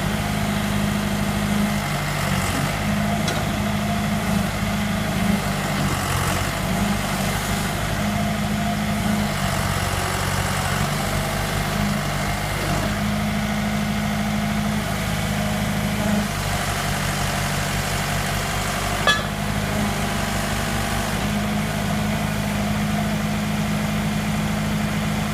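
John Deere 410 backhoe's engine running steadily at about idle, its pitch shifting slightly now and then, with one sharp click about two-thirds of the way through.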